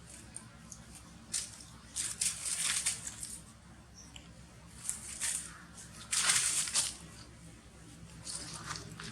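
A series of short rustling, scuffing noises, the longest and loudest about six seconds in.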